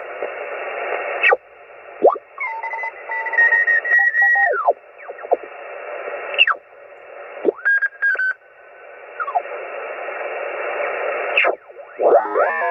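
Mobile HF ham transceiver's speaker giving out shortwave band noise, a steady hiss, as its tuning knob is turned. Signals sweep past as whistles that glide up and down, with a few sharp clicks, and near the end a cluster of arching whistles.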